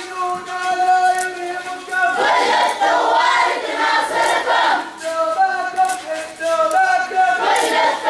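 Crowd of protest marchers chanting in call and response. A single lead voice holds a long sung line, and the crowd answers about two seconds in. The lead sings again around five seconds in, and the crowd comes back near the end.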